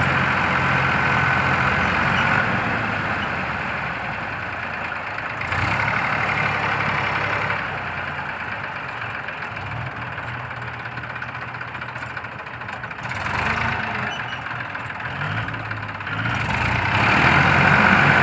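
Massey Ferguson 1035 DI tractor's three-cylinder diesel engine running at low speed, its level swelling and easing a few times and louder near the end.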